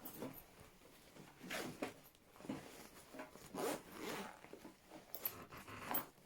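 Zip and rustling of a cheap fabric tactical bag's pocket as items are handled inside it: several short rasps and rustles spread across the few seconds.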